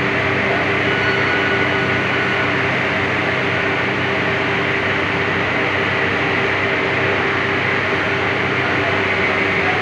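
A machine motor running steadily, a constant hum with an even rushing noise.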